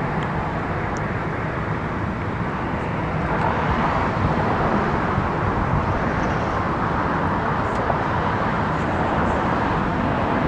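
A steady roar of distant jet aircraft and road traffic, which grows a little louder about three and a half seconds in.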